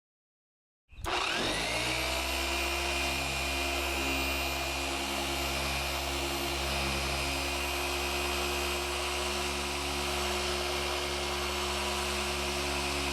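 Electric power tool switching on about a second in, spinning up to speed almost at once and then running at a steady speed with a steady whine.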